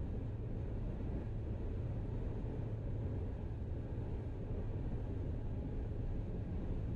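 Steady road and engine noise heard inside a car cruising at highway speed: an even low rumble with a faint hum, unchanging throughout.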